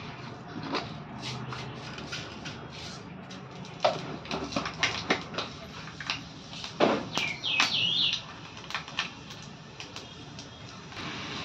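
Spatula knocking and scraping in a wok while frying, in scattered irregular clicks and knocks. A short warbling chirp about seven seconds in.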